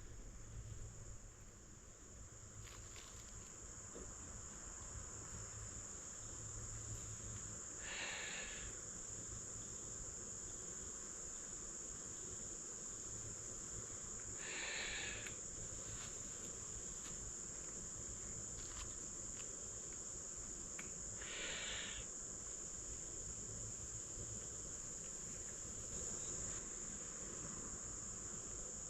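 Steady high chirring of crickets, with three soft breathy blows about seven seconds apart: air blown into a tinder bundle holding a hand-drill ember to coax it into flame.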